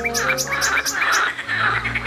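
Birds at a reedy pond calling in quick repeated chirps, about four a second, mixed with harsh, rasping calls, over soft orchestral background music.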